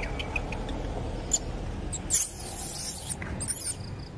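Macaques giving two short, shrill, high-pitched squeals a little past the middle, the first one the louder, with a few faint ticks before them.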